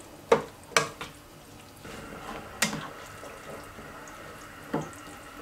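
A slotted spatula stirs boiled chickpeas through freshly added water in a wok, with liquid sloshing and four sharp knocks of the spatula against the pan, the first two close together near the start.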